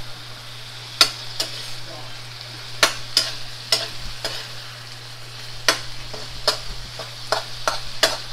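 Garlic shrimp sizzling in a hot steel wok while a metal spatula stirs them, scraping and knocking against the pan about a dozen times at uneven intervals.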